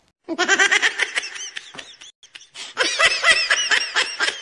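Laughter sound effect: rapid 'ha-ha-ha' pulses begin a moment in, break off briefly about two seconds in, then return louder before trailing off into spaced pulses.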